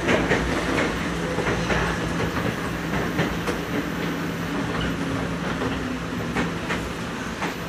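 Running noise of a Nagoya Municipal Subway 3000-series chopper-controlled electric train, heard from inside the car as it slows toward a station: wheels clicking over rail joints over a steady low hum, with a higher motor tone that drops out about six and a half seconds in.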